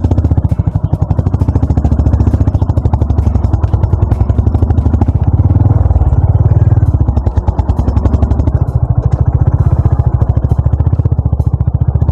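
Honda CB350 RS's single-cylinder engine running with a steady, even beat of exhaust pulses as the motorcycle is ridden, swelling slightly about halfway through.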